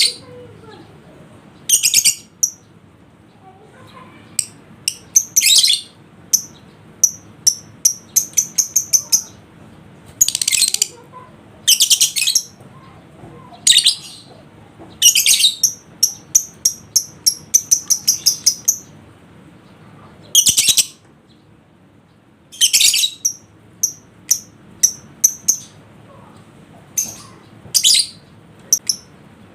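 Lovebird calling with shrill, high-pitched chirps in bursts every second or two: some single screeches about half a second long, others quick runs of short clipped chirps.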